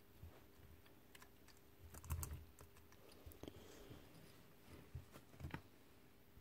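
Faint scattered clicks and light knocks of greasy metal hammer parts being handled and fitted as the piston is guided into the hammer pipe, the loudest cluster about two seconds in.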